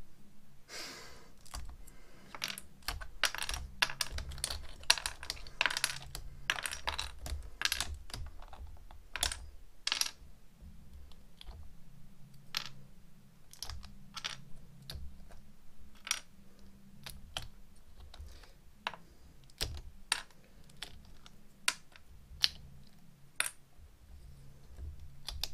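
LEGO bricks being pried off the casing of a silicone mould block and dropped onto a wooden board: a quick, irregular run of small plastic clicks and clatters that thins out to scattered single clicks after about ten seconds.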